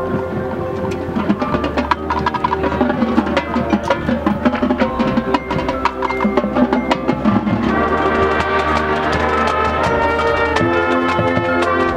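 High school marching band playing live: held wind and brass chords over busy drum and mallet percussion hits, the percussion easing about eight seconds in as the sustained chords take over.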